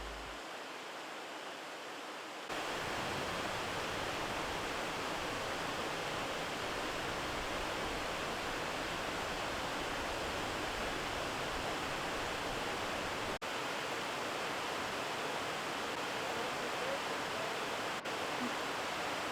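Steady rush of a steep mountain creek's water. It grows louder about two and a half seconds in and drops out for an instant twice near the end.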